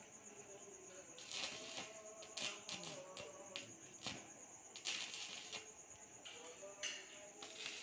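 Stick arc welding with an RD 260 welder set at 80 amps: the arc crackles and sputters in irregular bursts as joints in a steel frame are welded.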